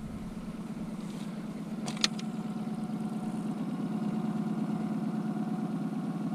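Boat's outboard motor running steadily at trolling speed, a little louder from about four seconds in, with one sharp click about two seconds in.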